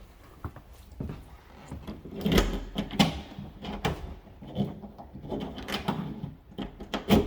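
Clicks and clunks of a freshly cut key being inserted and turned in a rekeyed door deadbolt, with a louder clunk a couple of seconds in and another near the end.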